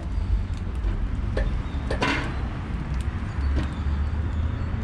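A few light metal clinks and a short scrape as a steel charcoal basket of burning briquettes is lowered on a wire hook into the Pit Barrel Jr's drum, over a steady low rumble.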